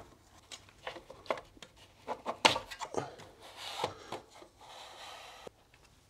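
Kair K-HRV150 heat-recovery fan unit's housing scraping, knocking and clicking against its wall-mounted back panel as it is pushed on by hand, with a sharper click about two and a half seconds in. A steady rubbing scrape follows and stops suddenly near the end as the unit seats.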